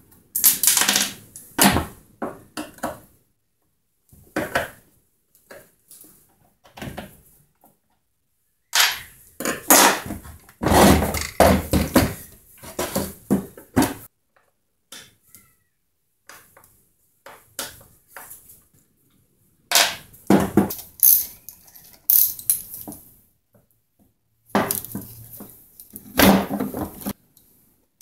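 Metal and plastic clattering as a chainsaw is taken apart by hand: parts and hand tools knock, click and rattle against each other and the bench. The sounds come in bursts, the longest and busiest about a third of the way in, with short quiet gaps between.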